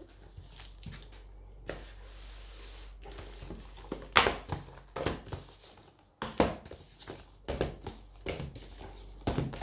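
Packaging being torn open and handled, crinkling: a short rasping tear about two seconds in, then a run of irregular sharp crackles and snaps.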